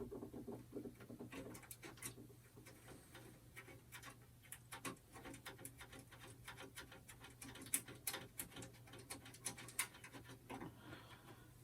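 Faint, irregular small clicks and ticks of a hand screwdriver and screw being worked back into a computer case's expansion-slot bracket, over a low steady hum.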